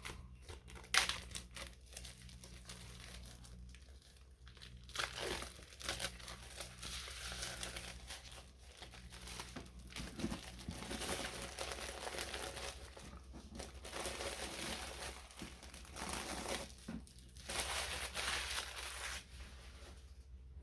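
Plastic shrink wrap being torn and crinkled as it is peeled off sealed board game punch boards, in irregular bursts, with a sharp snap about a second in.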